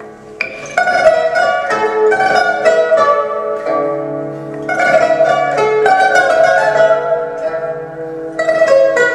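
Four pipas (Chinese lutes) playing together, many quick plucked notes over held ones, soft at first and growing louder about a second in.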